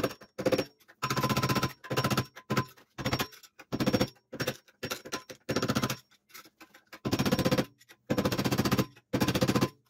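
Hammer striking a screwdriver used as a punch, tapping a knee mill's quill return clock spring out of its housing held in a vise: a run of sharp blows, roughly one or two a second.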